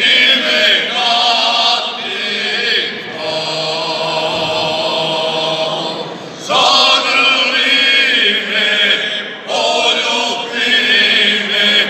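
A group of six men singing a traditional folk song a cappella in close multipart harmony, a first voice leading the others. The phrases are held long, with brief pauses for breath about six and nine and a half seconds in.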